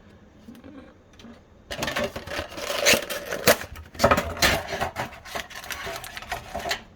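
Metal Pokémon collector tin and its contents being handled, a dense run of rattling and clattering with many sharp clicks that starts after a quiet second or two.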